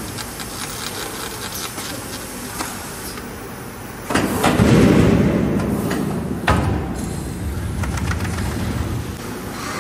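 Bubble-wrap slitting machine running with a steady mechanical noise. About four seconds in, a much louder rushing noise starts suddenly, a sharp knock comes about two and a half seconds later, and the noise then slowly eases off.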